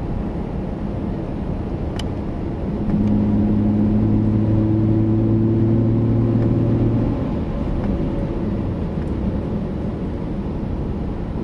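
Corsa exhaust on a 2010 Camaro's 3.6-litre V6, heard from inside the car while driving, over steady road noise. A little under three seconds in the exhaust grows louder into a steady low drone at an unchanging pitch for about four seconds, then falls back to the cruising note.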